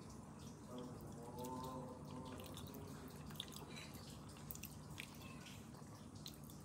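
A metal spoon cutting into a soft, wet sweet corn pudding and scooping a piece off the plate: faint squishy, wet sounds and small clicks of the spoon, most of them in the second half. Earlier, about a second in, a brief low hum-like tone is the loudest sound, over a steady faint background hum.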